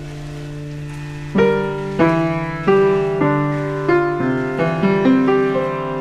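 Background music: piano notes struck one after another in a slow melody over a held low tone, the notes starting about a second and a half in.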